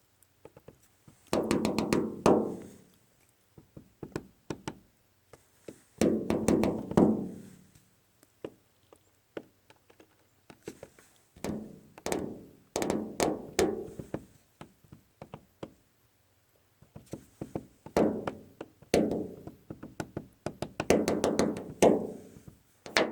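Woodpecker hammering on wood in about five rapid bursts of knocks, each burst ringing hollow, with a few scattered single taps between them.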